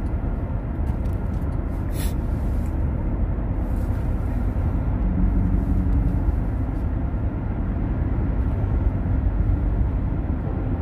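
Steady low rumble of engine and road noise inside a moving SUV's cabin, with a brief click about two seconds in.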